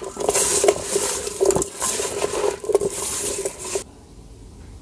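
Salted, sliced bitter melon being kneaded and squeezed by hand in an aluminium pot to draw out its juice: wet crunching and squishing with small knocks against the pot and a faint ringing from the metal. It cuts off abruptly near the end, leaving quiet room sound with a few faint clicks.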